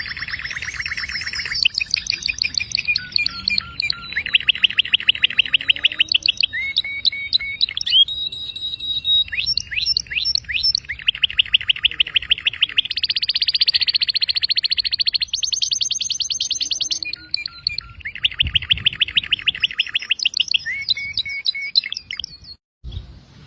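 Canary singing a long continuous song of rapid trills and rolls, each phrase a second or two long at a new pitch and speed, with a few clear whistled notes between them. The song breaks off briefly near the end.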